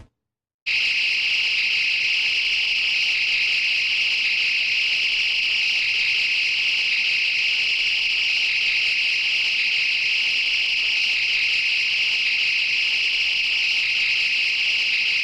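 Synthesized laser sound effect: a steady, high-pitched hissing beam tone that starts suddenly about a second in, holds unchanged, and cuts off abruptly.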